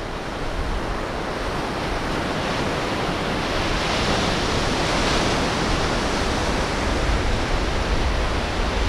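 Ocean surf breaking and washing up a sandy beach, a steady rush that swells about four seconds in.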